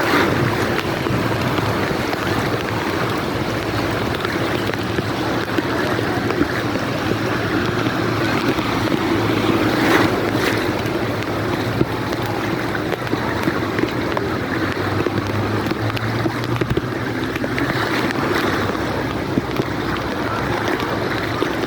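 Heavy rain and rushing water, with a vehicle engine running steadily underneath.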